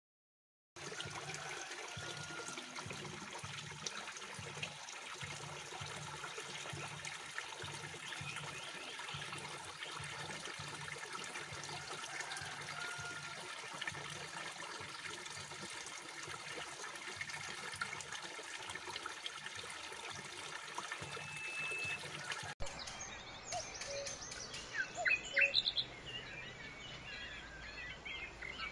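Water pouring into a pond from a pipe inlet and a row of small spouting holes in a wall: a steady splashing rush, with a few faint bird chirps. About 22 seconds in the rush stops at a cut, leaving quieter outdoor sound with short bird chirps.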